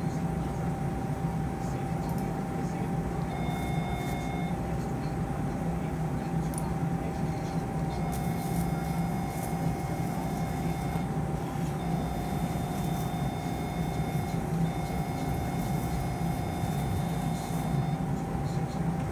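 Electrosurgical (cautery) unit sounding its activation beep four times, for one to three seconds each, as the capsule is cut free. Underneath runs a steady rushing hum of operating-room suction or smoke evacuation, with a constant tone.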